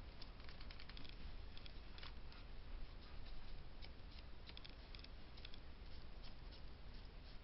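Scattered light clicks and ticks of hand crafting at a desk: paper and small tools being handled, irregular and uneven in spacing.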